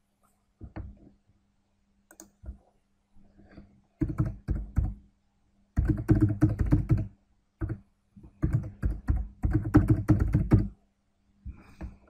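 Typing on a computer keyboard as a password is keyed into two form fields: a few scattered key clicks, then three quick bursts of keystrokes from about four seconds in.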